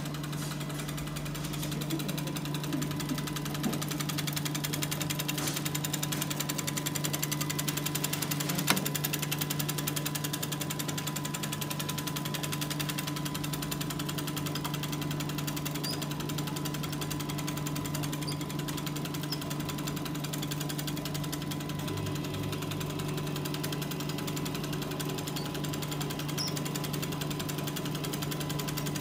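Chocolate enrober running steadily: a continuous machine hum with a fast, even rattle as its wire-mesh belt carries bonbons through the chocolate curtain. A single sharp click about nine seconds in.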